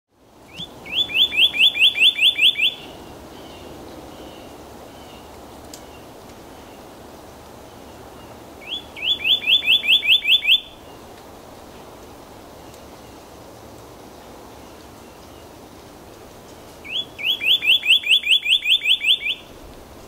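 Male northern cardinal singing: three song phrases about eight seconds apart, each a short lead-in note followed by a quick run of about ten repeated clear whistled notes.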